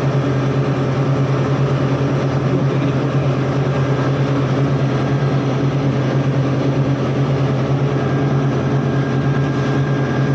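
Steady drone of running machinery: a constant low hum with a few fainter steady tones above it, unchanging throughout.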